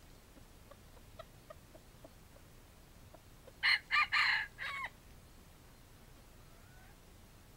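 Wild junglefowl rooster crowing once: a short, clipped four-part crow of about a second, the last part falling. A few faint short clucks come before it.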